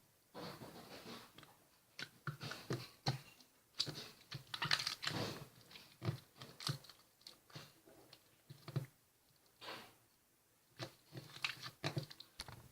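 Slime being squeezed, poked and stretched by hand, making irregular sticky clicks and pops in uneven clusters, with short pauses between handlings.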